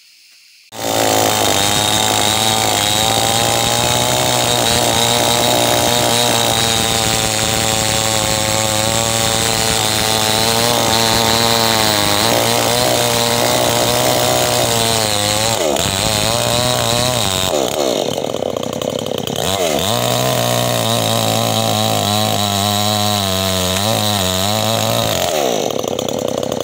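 X-TRA-POWER chainsaw cutting through a thick log at high revs, setting in within the first second. Past the middle the engine speed dips and picks up again several times as the chain bites into the wood.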